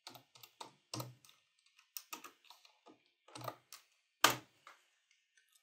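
Computer keyboard typing: irregular, scattered keystrokes, with one louder click about four seconds in.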